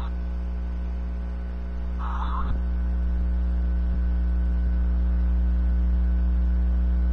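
Steady electrical hum with a stack of even overtones, growing slightly louder about two and a half seconds in. About two seconds in comes a brief snatch of thin audio from the handheld's small speaker.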